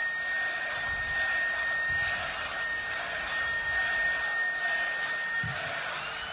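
Large festival crowd cheering as a steady wash of noise, with a steady high whine over it that stops about five and a half seconds in.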